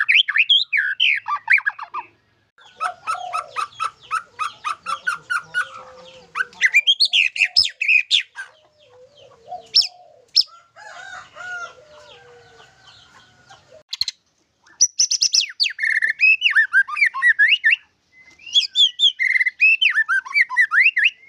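White-rumped shama singing: a varied, loud song of rapid repeated notes, sweeping whistles and trills, with some lower whistled phrases near the middle, typical of the bird's mimicry-laced song. It is broken three times by short, abrupt silences.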